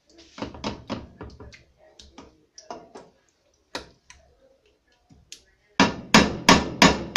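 A spoon knocking and scraping against a wide pan while tomato sauce is spread over the food in it. Scattered taps give way, near the end, to a quick run of about five loud knocks, roughly three a second.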